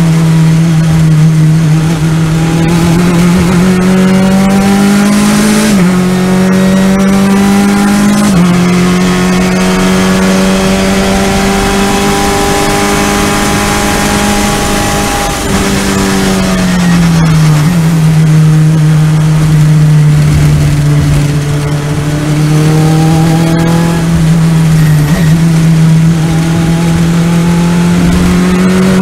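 Race car engine at full throttle, heard from inside the cockpit on track. Its pitch climbs and steps at gear changes, falls as the car brakes about halfway through, then climbs again as it accelerates out of the corner.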